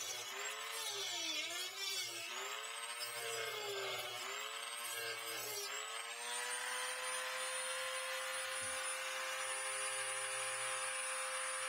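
Handheld rotary tool with a cutting wheel whining as it cuts through the clear plastic juicer housing. Its pitch sags and recovers several times as the wheel bites into the plastic, then holds steady from about halfway.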